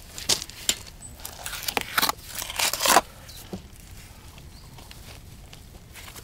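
A perforated metal corner bead being pressed into dabs of mortar on a plastered wall corner: a handful of short scrapes and rustles over the first three seconds, then only faint background.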